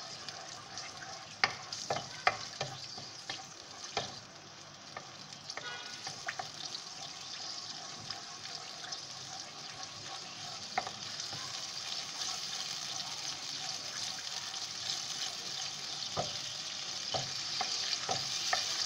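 Ginger-garlic paste and green chilli paste sizzling steadily in hot oil in a karahi, being sautéed. A wooden spatula stirs it and now and then knocks and scrapes against the metal pan, several times in the first few seconds and again near the end.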